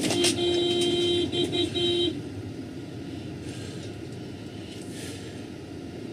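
A vehicle horn blown hard in one long blast, then a few quick short toots, stopping about two seconds in; low road and engine rumble carries on underneath.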